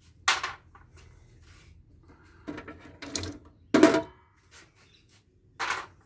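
Metal parts being handled during an electronics teardown: five short clanks and clatters, the loudest about four seconds in with a brief metallic ring.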